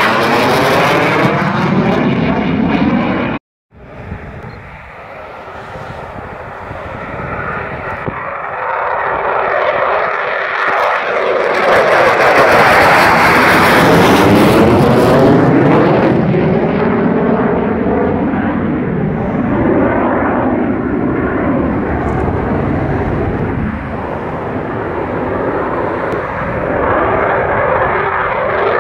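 Military fighter jet engines passing low overhead, with a sweeping, phasing sound as they go by. The sound cuts out abruptly about three and a half seconds in. Another jet's noise then builds up, loudest around the middle, and stays loud to the end.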